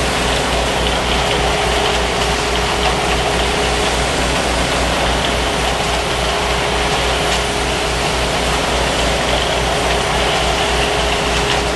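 Engine of heavy construction machinery running steadily, with a constant hum and a low, even throb about four times a second.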